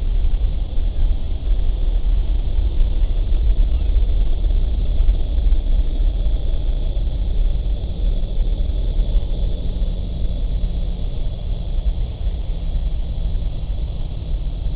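Deep, steady rumble of a C-17 Globemaster III's four turbofan engines at takeoff power as the jet lifts off and climbs away. The sound eases slowly over the second half as it departs.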